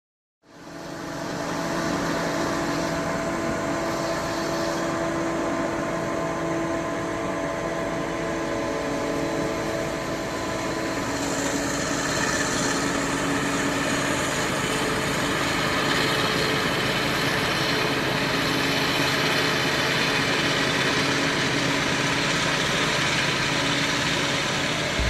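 Heavy farm machinery running steadily during a maize harvest, a diesel engine with held tones over a broad mechanical noise.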